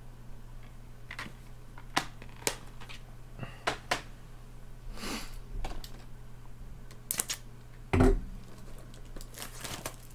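Plastic disc cases being handled: a string of sharp clicks and snaps, a short sliding rustle about five seconds in, and a heavier knock about eight seconds in. A steady low hum runs underneath.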